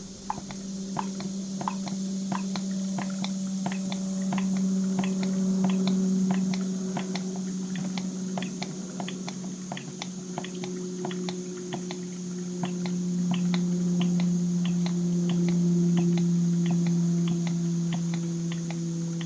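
A chainsaw's primer bulb pressed over and over, making short squishy clicks about two to three times a second, over a steady low hum. The bulb is not filling with fuel because a fuel hose was knocked off when the carburetor was fitted.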